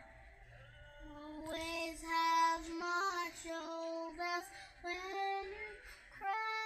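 Young child singing a melody of held, high notes, starting about a second in with short breaks between notes.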